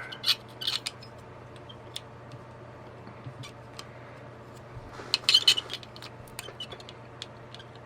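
Light clicks and taps of a large LED display module's pins knocking against a circuit board as they are lined up with its holes, with a cluster of louder clicks about five seconds in.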